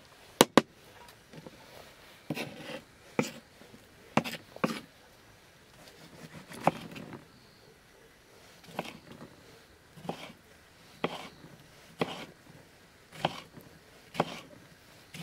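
Kitchen knife cutting onion and tomato, single strokes about once a second, each a short sharp tap, with a loud double click about half a second in.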